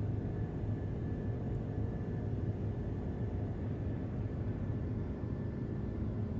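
Steady low engine rumble with a faint constant hum, heard from inside a vehicle in motion.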